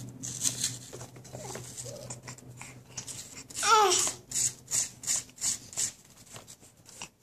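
A baby's short babbling cry, bending down in pitch, a little past halfway; it is the loudest thing heard. After it comes a run of short scraping strokes, about three a second, from a halved apple being scraped to feed him.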